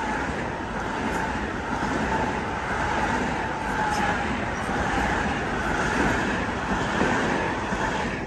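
Long Island Rail Road train passing, a steady rumble of wheels on rail with a faint high ringing tone over it.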